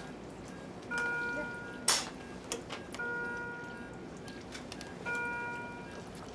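A medical equipment alarm sounds a several-note chime three times, about two seconds apart, each tone fading over about a second. A single sharp click comes near two seconds in.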